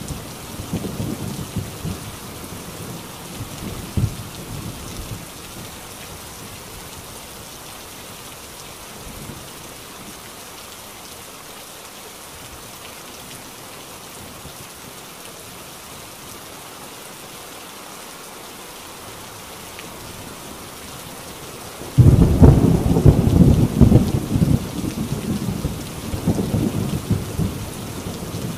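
Heavy rain falling steadily on a tin roof, with rolling thunder that dies away in the first few seconds. About three-quarters of the way through, a sudden loud thunderclap breaks into a long, uneven rumble.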